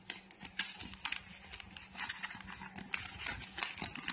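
Hands handling a white cardboard box and its inner tray: an irregular run of short crinkles, taps and scrapes of cardboard and paper as the packaging is slid open.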